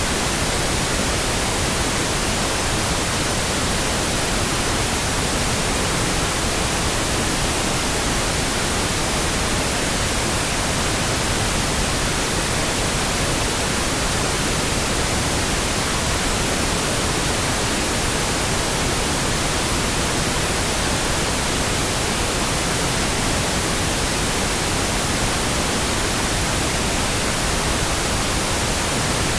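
Steady, unchanging pink noise: an even hiss across the whole range, with no breaks or changes.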